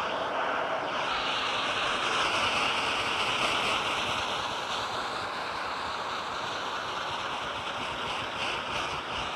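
Dyson vacuum cleaner sucking through its bare tube nozzle as it is worked into a shaggy rug. The steady airflow whoosh shifts in pitch as the nozzle presses into and lifts off the pile. Near the end come quick crackles of grit being pulled up the tube.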